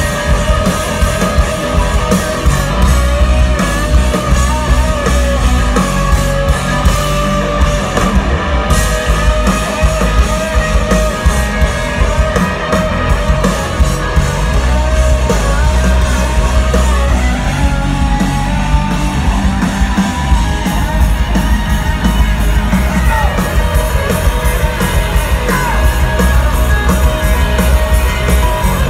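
Live rock band playing loud through the stage sound system, heard from the audience: electric guitars, bass and drum kit with a sung lead vocal.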